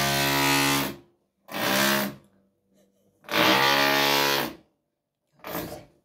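Neighbour's electric drill running in four bursts at a steady pitch: a long run that stops about a second in, a short one, a longer one around the middle, and a brief one near the end, heard through the building.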